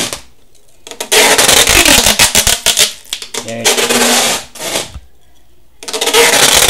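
Clear packing tape being pulled off its roll in three long, crackling ripping pulls as it is wound round a washing-machine motor.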